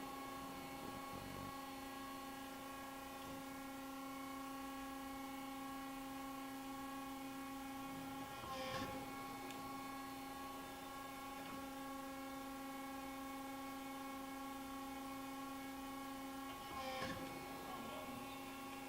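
Hydraulic power unit of a CNC Accurpress 60-ton press brake running with a steady, pitched hum. Twice, about nine seconds in and near the end, a brief burst of hissing noise as the ram cycles through a bend.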